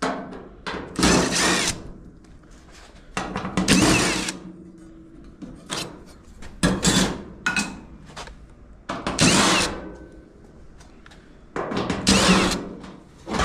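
Power drill-driver running in five short bursts of about a second each, backing screws out of a clothes dryer's sheet-metal back panel.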